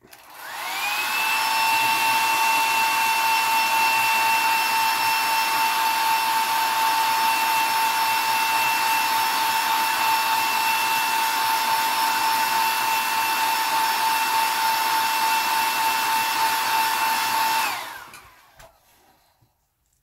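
Handheld hot-air dryer running to heat-set fresh airbrush paint. Its motor whine rises as it switches on, then holds steady over a rush of air until it winds down and stops near the end.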